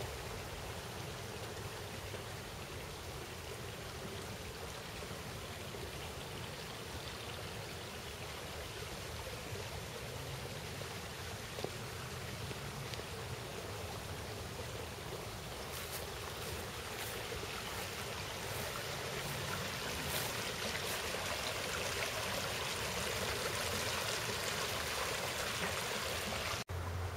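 Small stream running over rocks, a steady rush of water that grows louder in the second half.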